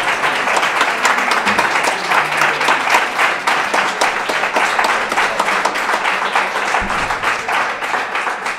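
Audience applauding: many hands clapping steadily, thinning a little near the end.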